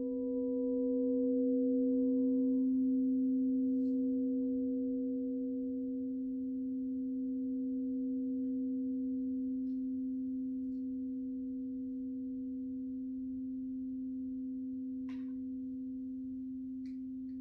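Crystal singing bowls ringing out after being played: one strong, steady low tone with a fainter higher tone, slowly fading, while a still higher tone dies away within the first few seconds.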